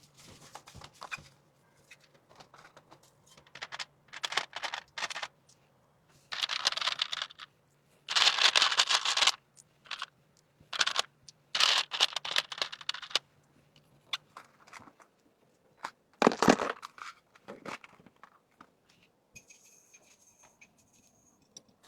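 Packaging being handled: crinkling and rustling in short, irregular bursts, with the loudest bursts about eight and sixteen seconds in.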